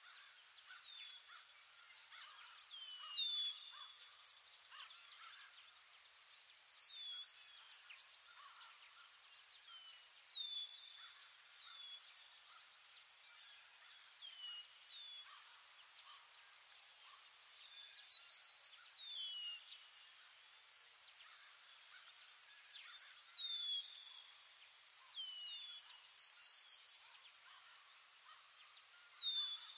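Ambient forest sounds: a steady, fast-pulsing insect trill with short, high, falling bird chirps repeated every few seconds, sometimes in quick pairs.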